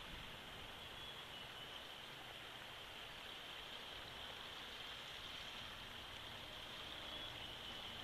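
Steady faint hiss of outdoor ambience, with a constant high hissing band and no distinct calls, knocks or rustles standing out.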